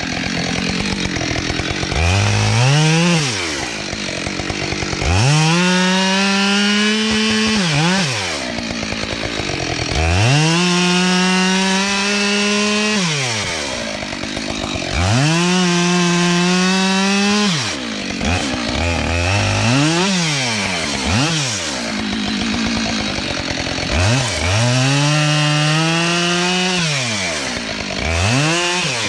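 Two-stroke chainsaw opened up to full throttle and held there for two to three seconds at a time, about five times, dropping back down between runs with a couple of short revs near the middle.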